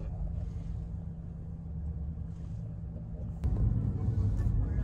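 Low, steady road and engine rumble heard from inside a moving car. A sharp click comes about three and a half seconds in, and the rumble is louder after it.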